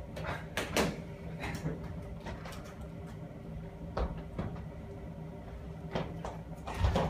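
Scattered knocks and thumps with a few sharper clicks, from people moving about and throwing a paper ball around a room, over a steady low hum. The loudest knocks come just under a second in and again near the end, the last one a heavy thud.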